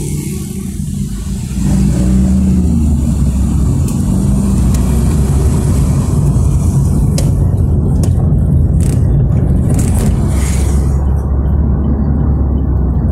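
Car engine and road noise heard from inside the cabin while driving, growing louder about two seconds in as the car pulls away from a stop in traffic.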